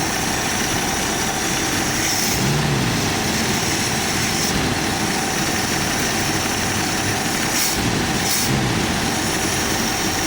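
AMC Jeep engine idling steadily on its carburetor's idle circuit, with the smog air pump spinning and giving a gravelly sound over the idle.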